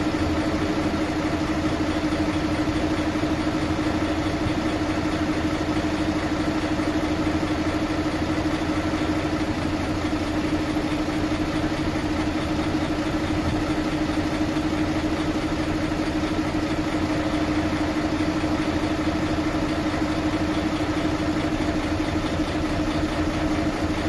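Mercedes-Benz Actros six-cylinder truck diesel engine idling steadily while a diagnostic tester cuts its cylinders out one at a time. The engine has a noise that is being traced cylinder by cylinder, and the mechanic later pins it on cylinder six.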